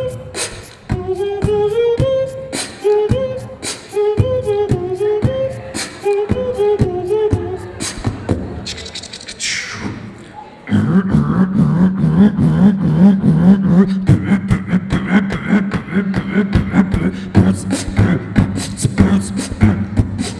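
Beatboxing into a handheld microphone: rapid kick-and-snare mouth drums with a pitched vocal melody laid over them. About ten seconds in, a louder, steady deep bass drone comes in under the beat.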